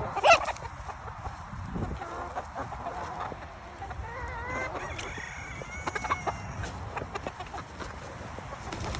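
A flock of chickens clucking and squawking, excited over freshly spread feed, with one loud squawk right at the start and a run of calls in the middle.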